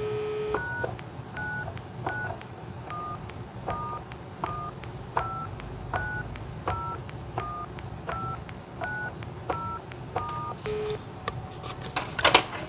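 Analogue desk telephone keypad: the dial tone cuts off at the first key press, then fourteen short touch-tone (DTMF) beeps come about one every 0.7 s as the FritzBox factory-reset code #991*15901590* is keyed in. A short low beep follows, then a clatter near the end as the handset goes back on the cradle.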